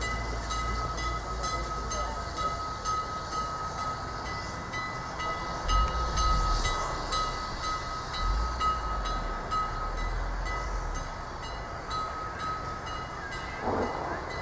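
Prussian T3-type steam tank locomotive moving slowly on its own, hissing steam, with a steady thin whine and a regular light clanking from its running gear.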